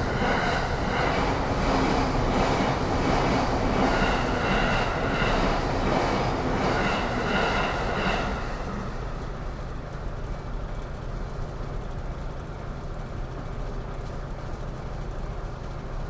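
Electric commuter train running past over a level crossing, loud for about the first eight seconds and then dropping away to quieter street noise.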